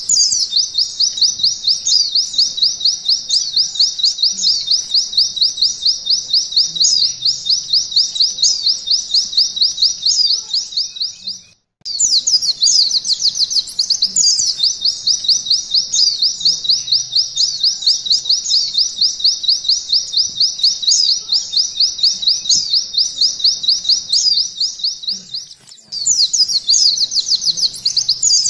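Oriental white-eye (pleci) singing a long, fast canary-style trill ('nembak'), an even run of quick, high notes. It breaks off briefly about 11 seconds in and dips again near 25 seconds, then resumes.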